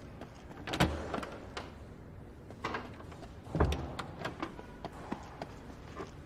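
Two loud thumps, the first about a second in and the second nearly three seconds later, among lighter clicks and knocks.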